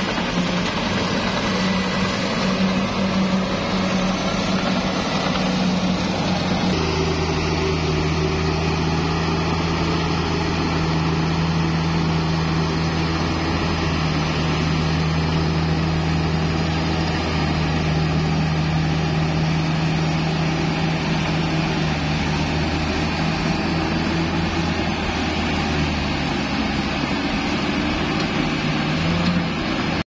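Komatsu D68ESS bulldozer's diesel engine running steadily with a low, even hum as the dozer works; about seven seconds in the engine note shifts slightly lower and deepens.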